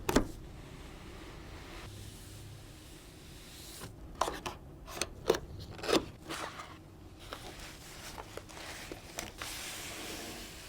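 Keyboard packaging being handled and opened: rubbing and scraping of cardboard and plastic, with a sharp knock at the start and a cluster of sharp clicks and rustles from about four to six seconds in.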